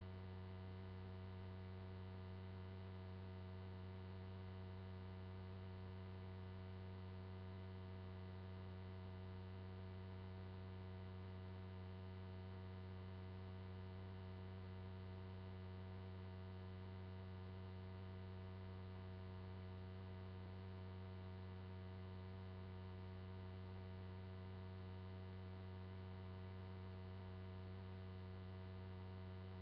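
Steady electrical mains hum with a buzzy edge, unchanging, with no other sound heard over it.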